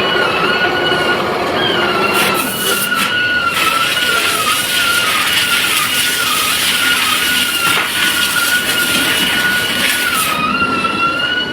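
A loud, continuous high-pitched mechanical squeal that wavers slightly in pitch, over a steady noisy rumble.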